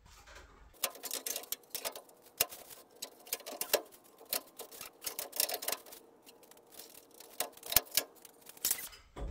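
Metal grille and headlight assembly of an old Jeep truck being handled and pulled off the front end: irregular light clicks, taps and rattles, starting about a second in.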